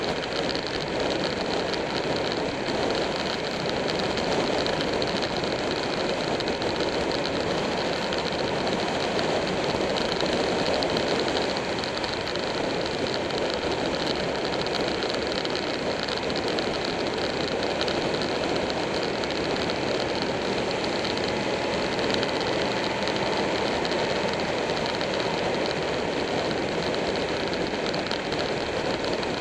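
Steady wind rush over the microphone mixed with a motorcycle engine droning at a constant cruising speed on the open road.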